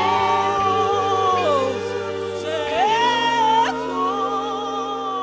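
Gospel worship singers holding long final notes in harmony over steady sustained instrumental chords, the harmony moving to a new chord about three seconds in.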